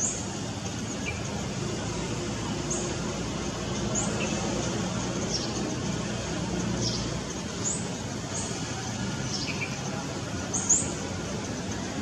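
Scarlet-backed flowerpecker calling: short, very high, thin notes that drop in pitch, one every second or two, with a quick double note about two-thirds of the way through. A steady low background rumble runs underneath.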